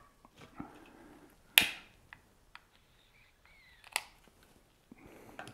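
A few small, sharp clicks and taps from handling a tobacco pipe and a small metal pipe tool. The loudest comes about one and a half seconds in, and another about four seconds in.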